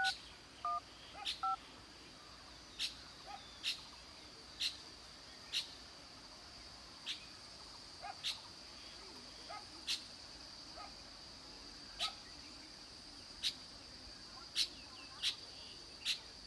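Countryside insect and bird sounds: a steady high insect drone, a sharp high chirp repeated irregularly about once a second, and a few short whistled notes near the start.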